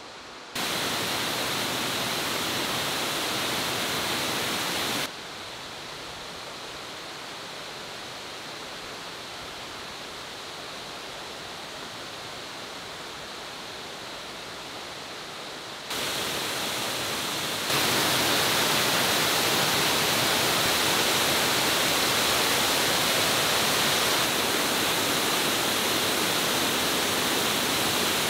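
Steady rush of water from a waterfall cascading over rock, with its rapids. The level jumps abruptly several times: quieter from about five seconds in, then louder again from about sixteen seconds and louder still from about eighteen seconds.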